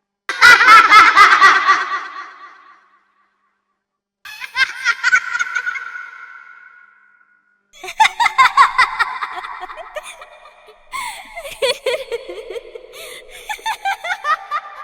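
Children laughing in three separate bursts, each a run of quick giggling pulses that fades away; the third burst is the longest.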